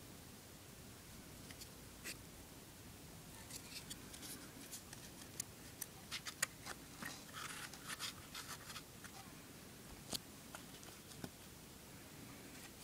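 Faint, scattered clicks, taps and light scraping from a small handmade matchstick model boat being handled. They bunch together in the middle and thin out to single clicks near the start and end.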